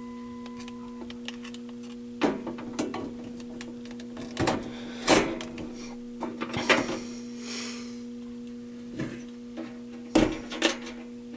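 Steady electrical hum from a voice-alarm speaker and amplifier system idling after its announcement, with a series of sharp clicks and knocks, the loudest about five and ten seconds in.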